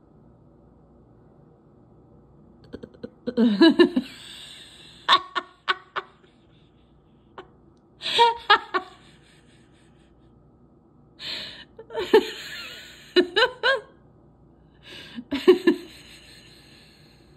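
A woman laughing hard in several breathy bursts, the first starting about three seconds in.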